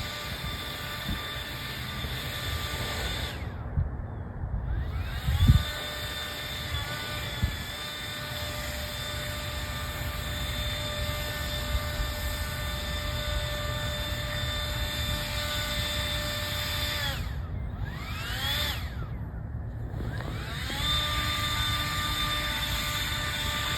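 Small engine-driven snow blower clearing snow, running steadily with a high whine. Its pitch drops and recovers about 4 s in and again around 17 to 20 s in, as the engine bogs under load. A knock sounds about 5 s in.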